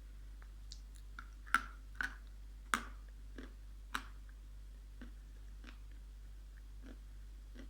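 Dried clay being bitten and chewed: sharp, irregular crunches, loudest in a cluster between about one and a half and four seconds in, over a low steady hum.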